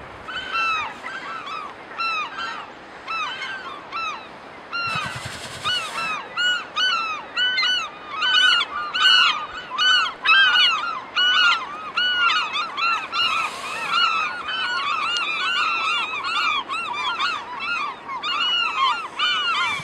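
A colony of gulls calling over and over, many short arching calls overlapping several times a second. Two brief rushes of noise break in, about five seconds in and again around thirteen seconds.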